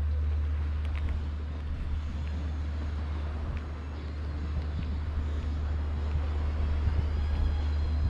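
Outdoor street ambience with a steady low rumble and a few faint clicks.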